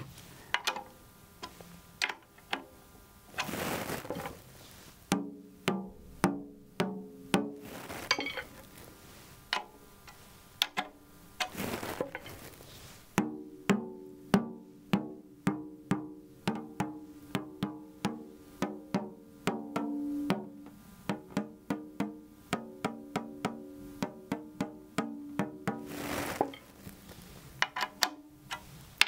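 Tom-tom being tuned: a drumstick taps the drum head lightly, again and again, next to one tension rod after another, and each tap gives a short pitched drum tone, checking whether the tension is the same at every rod. A few brief scraping noises come between the runs of taps.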